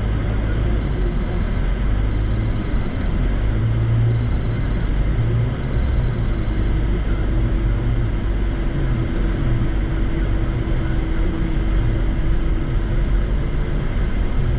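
Car driving, with a steady low rumble of road and engine noise heard from inside the cabin. About a second in come four short runs of high-pitched beeps over roughly five seconds, and a steady hum joins the rumble partway through.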